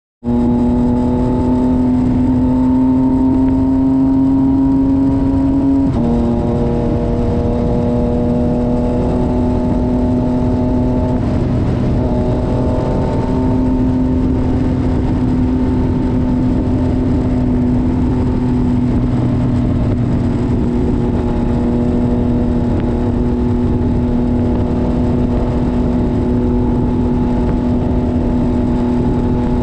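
Motorcycle engine running at a steady cruising pitch, with wind rush over it. The engine note steps down slightly about six seconds in and dips briefly again around eleven seconds before settling.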